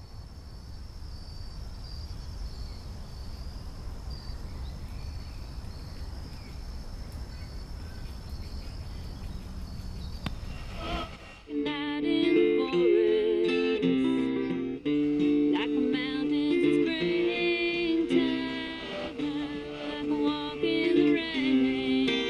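A low steady rumble with faint high chirping, then about eleven seconds in a country song with strummed acoustic guitar and singing starts suddenly from the car radio and stays the loudest sound.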